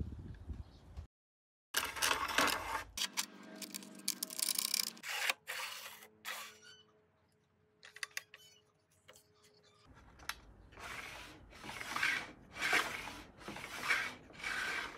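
Aluminium fence and mitre gauge of an Einhell TE-CC 250 UF table saw being fitted and slid, metal scraping and rubbing on metal. Near the end comes a run of about six even back-and-forth sliding strokes.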